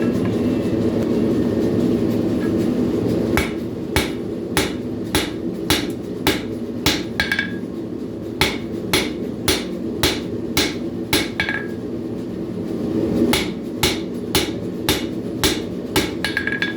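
Hand hammer striking a hot carbon-steel knife blade on an anvil, forging in the bevels: about two blows a second in three runs with short pauses, each run ending in a brief ring. A steady low rumble runs underneath.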